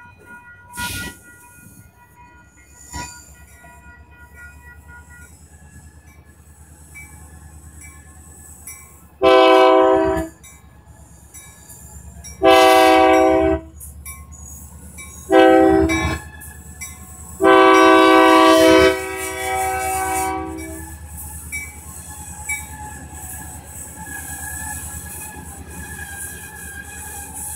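Diesel locomotive horn sounding the grade-crossing signal: two long blasts, a short one and a final long one, over the regular ringing of the crossing-signal bell. Toward the end the locomotives roll through the crossing with a low engine rumble.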